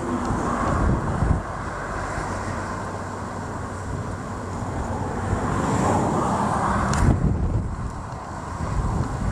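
Strong wind blowing over the microphone, a rushing, rumbling noise that swells and eases.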